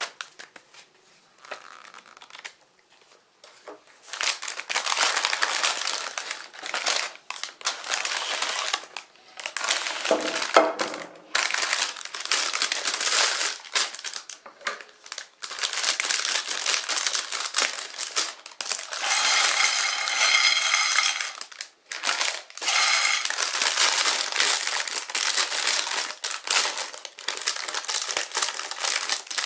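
Plastic parts bags crinkling as they are handled and cut open, with small plastic building bricks clattering onto a ceramic plate. Quieter and fitful for the first few seconds, then steady crinkling with short pauses.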